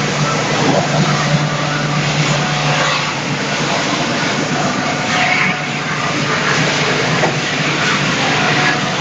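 SB-800 circular-saw log-squaring mill running, a loud, steady machine noise over a constant motor hum.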